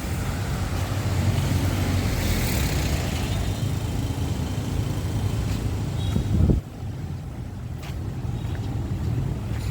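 Street traffic: motor vehicles running past with a steady low rumble. Just before six and a half seconds in, one engine rises in pitch and then cuts off suddenly, and the traffic is quieter after that.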